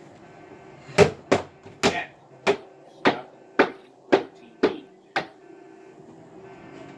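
A television being struck with repeated hard blows: about ten sharp hits, roughly two a second, from about a second in to a little after five seconds.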